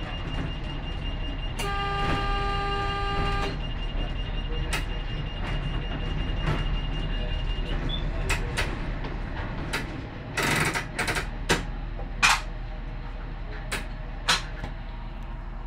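A train running slowly with a steady low rumble, its horn sounding one blast of about two seconds near the start, a warning to a horse walking on the track ahead. A thin high steady tone fades out after about eight seconds, and scattered sharp clicks and knocks follow in the second half.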